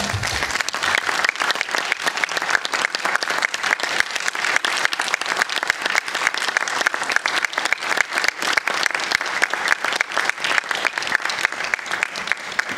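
Audience applauding: dense, steady clapping from a crowd just as the dance music stops.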